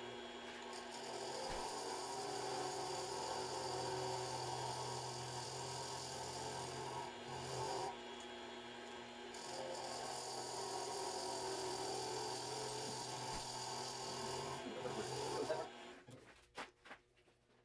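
Mini lathe running with its motor humming while a lathe tool scrapes and cuts the spinning wood ring blank, the rasping cut breaking off briefly a few times. The lathe stops about 16 seconds in, leaving a few faint clicks.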